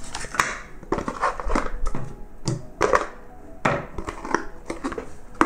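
A cardboard product box and its packed contents being handled: irregular rustling, scraping and light knocks, with a sharper knock near the end.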